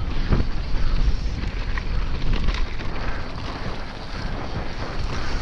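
Yeti SB150 mountain bike rolling fast down a dirt trail: a steady rush of wind on the microphone and tyre rumble, with scattered sharp knocks and rattles from the bike over the rough ground.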